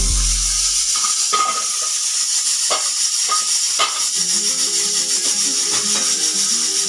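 Pressure cooker letting out steam in a steady high hiss, with scattered clicks. Background music plays underneath, its low melody notes coming in about four seconds in.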